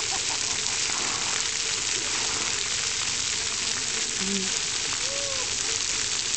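Splash-park water jets spraying and spattering onto wet concrete: a steady hiss like heavy rain. Faint children's voices come and go in the background.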